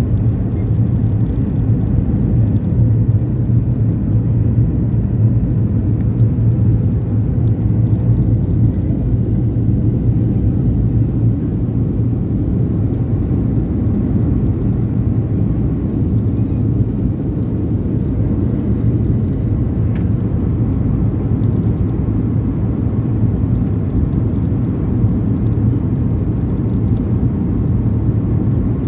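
Steady cabin noise of a Boeing 737-700 on final approach: a deep, even drone of its CFM56 jet engines and the rush of air past the fuselage, heard from inside the cabin.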